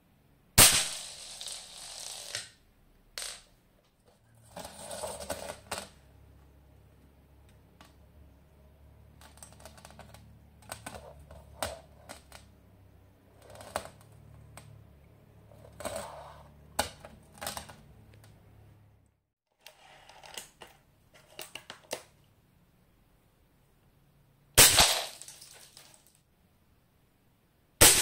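Airsoft BBs fired from a Snow Wolf M24 spring sniper rifle striking a ceramic lamp base: a sharp crack followed by a second or so of shards clattering, three times, the last two close together near the end. In between there is a low handling rumble and scattered light clinks of broken ceramic.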